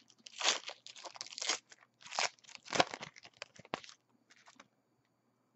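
Shiny foil wrapper of a football trading card pack being torn open and crumpled in the hands: a run of crackling, crinkling rustles that stops about four and a half seconds in.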